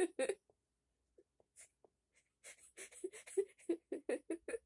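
A woman giggling to herself in short breathy bursts: a few at the start, a pause of about two seconds, then a quicker run of about four a second to the end.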